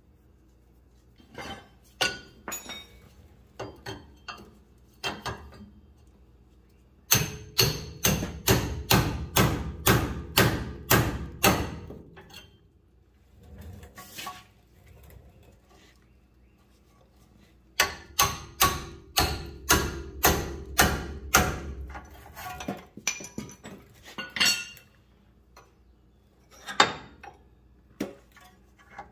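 Hammer blows, metal on metal, knocking the tapered studs of worn tie rod ends loose from a truck's steering linkage: a run of about a dozen quick, even strikes, a pause, then another run of about ten, with lighter clinks and knocks of tools between.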